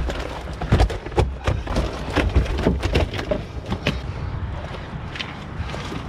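Irregular wet slaps and thumps of several large common carp flopping and shifting in a mesh weigh sling as it is handled, with rustling of the net. Busiest in the first four seconds, then fewer and softer.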